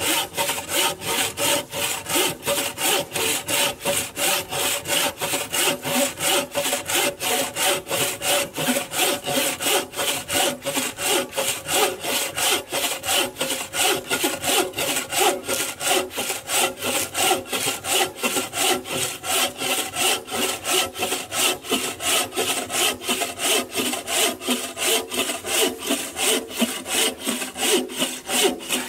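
A 36-inch bow saw cutting through a dry, very hard ironwood log, with steady, even back-and-forth rasping strokes of the blade in the wood.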